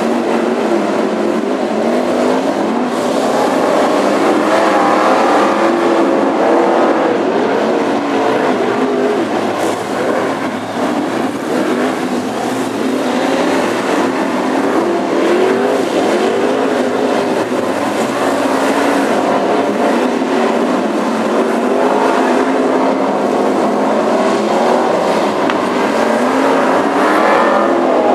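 A pack of BriSCA F1 stock cars racing, their V8 engines revving up and easing off through the bend, several engine notes rising and falling over one another.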